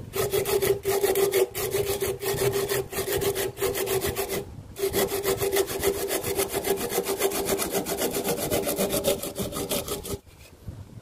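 Curved-blade hand saw cutting through a turned wooden piece in rapid back-and-forth strokes, parting it off from the waste held in the lathe chuck. A steady hum runs under the strokes; the sawing pauses briefly about four and a half seconds in and stops about ten seconds in.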